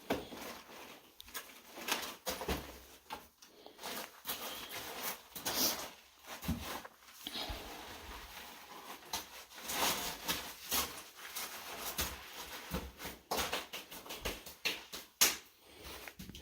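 Footsteps scuffing and crunching on wet dirt and mud as a hiker scrambles up a slope, in irregular steps of varying loudness.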